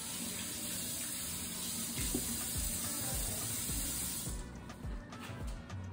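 Kitchen tap running in a steady stream, cutting off about four and a half seconds in, under quiet background music with a soft beat.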